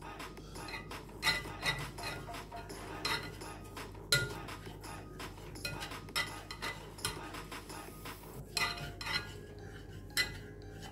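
A wooden chopstick stirring granulated sugar in a small saucepan, tapping and scraping against the pan's bottom and sides in quick, irregular clicks. The sugar is just starting to melt for dalgona candy.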